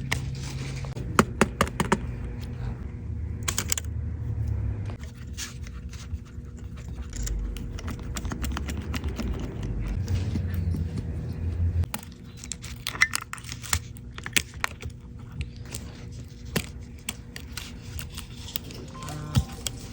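Small tools clicking and tapping on iPhone parts during a repair: scattered light clicks throughout, with a low hum under them that stops about two thirds of the way through.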